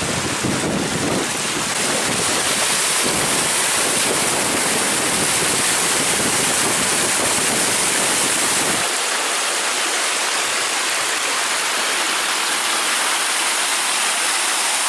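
Small woodland waterfall rushing steadily over rocks. A low rumble under the water drops away about nine seconds in, leaving just the even rush of the water.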